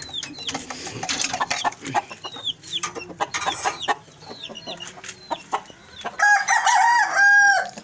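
Aseel rooster crowing once, loud, for about a second and a half near the end. Before it, scattered clucks, short chirps and clicks.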